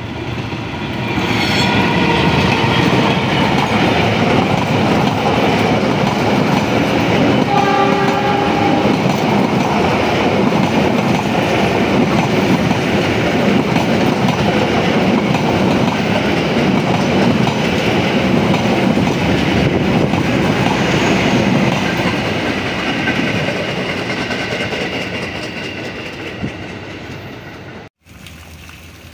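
Passenger train passing close by at speed, wheels running on the rails with a steady loud rush, and a train horn sounding briefly about eight seconds in. The noise fades away over the last several seconds as the train moves off.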